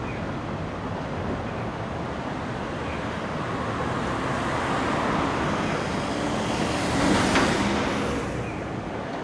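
Road traffic: a car drives past on the street, its tyre and engine noise swelling to a peak about seven seconds in and then fading away.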